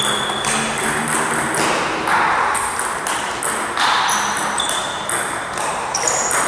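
Table tennis rally: the celluloid-style ball clicking sharply off the rubber paddles and the table in quick alternation, several hits a second, some followed by a short high ring.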